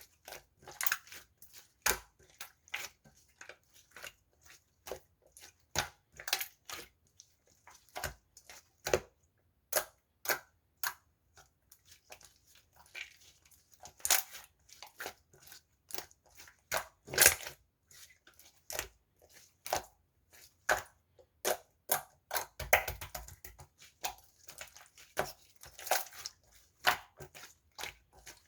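Blue water-jelly sherbet slime being squeezed and pressed by hand, giving irregular crunchy crackles and pops, one to three a second.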